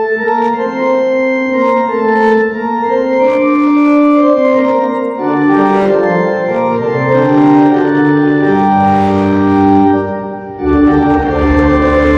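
Church organ playing in held chords, starting abruptly. Deep bass notes come in about halfway through and grow stronger after a brief break near the end.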